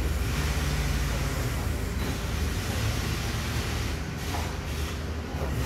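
Steady low rumble of a diesel rail vehicle's engine at the station, easing slightly about four seconds in and picking up again near the end.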